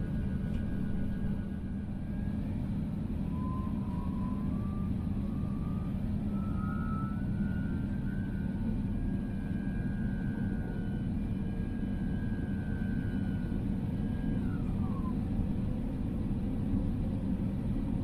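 Steady low cabin rumble of an Airbus A350-900 taxiing, heard inside the cabin. A thin whine rises in pitch a few seconds in, holds, and drops away near the end.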